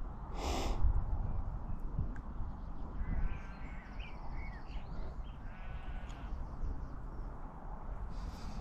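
A harsh animal call about half a second in, then fainter, shorter calls around three and six seconds in, over a steady low rumble.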